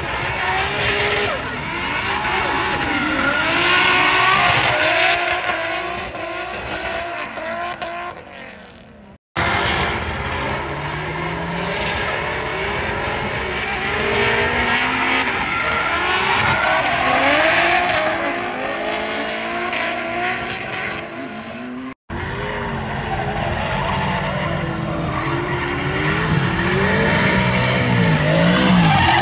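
Drift cars' engines revving up and down, with tyres squealing and skidding through the slides. The sound breaks off abruptly twice where the recording cuts from one run to the next.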